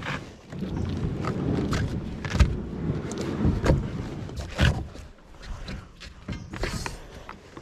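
Irregular knocks and bumps over a low rumble: handling noise on a GoPro camera strapped to a child as he moves about.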